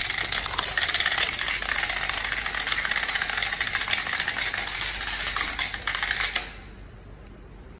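Translucent plastic building tiles toppling one after another in a long domino chain: a rapid, continuous clatter of clicks that stops about six and a half seconds in.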